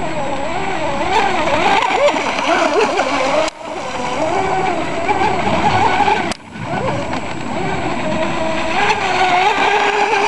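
RC speedboat motor whining at speed, its pitch wavering up and down as the throttle and the hull's contact with the water change. The sound drops out abruptly and briefly twice, a little over 3 seconds in and about 6 seconds in.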